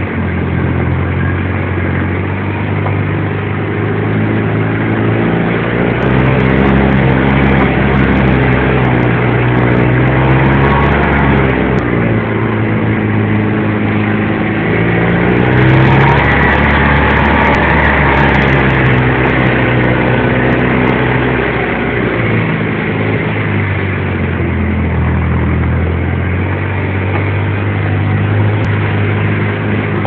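Jeep engine running as it drives slowly along, its pitch stepping up and down with the throttle, over a steady rumbling noise.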